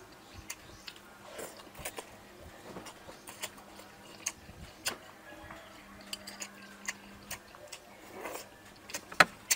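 Close-up eating sounds: chewing and lip smacks with many scattered sharp clicks, and a metal spoon clinking and scraping in a bowl. The loudest click comes near the end.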